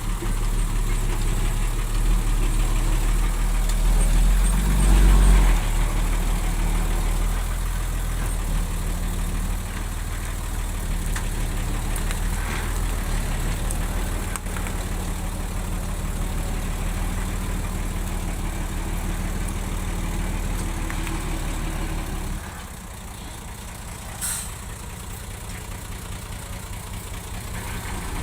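Heavy diesel engine of an earth-moving machine running steadily. It swells briefly about four to five seconds in and drops to a lower, idling level a few seconds before the end, with a short hiss soon after the drop.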